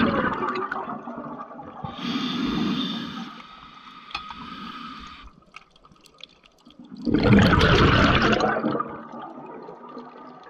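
Scuba diver breathing through a regulator underwater: a breath drawn in about two seconds in, then a loud gush of exhaled bubbles about seven seconds in.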